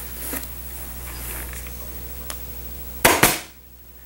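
Hands working dry upholstery moss padding onto a chair arm: soft scratchy rustling over a steady low hum. About three seconds in come two sharp, loud knocks close together.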